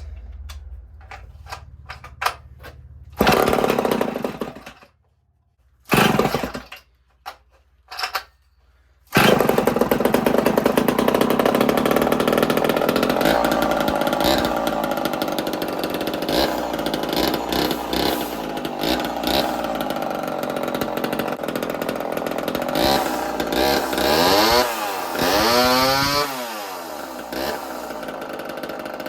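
A freshly ported Homelite two-stroke chainsaw being pull-started: a few short sputters that die out, then it catches about nine seconds in and keeps running, revving up and down several times near the end.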